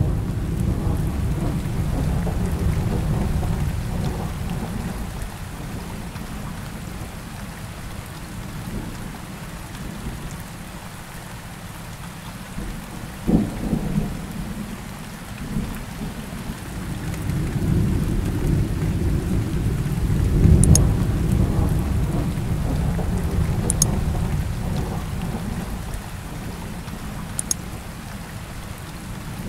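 Recorded rain and thunderstorm ambience: steady rain with thunder rumbling, swelling twice, and a sharper crack near the middle.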